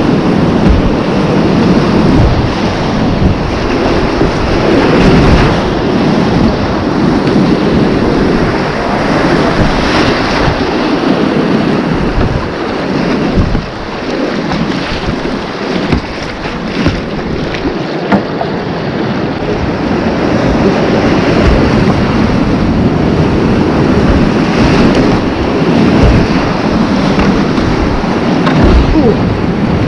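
Whitewater rapids rushing and churning around a kayak, with the splash of paddle strokes and wind buffeting the microphone.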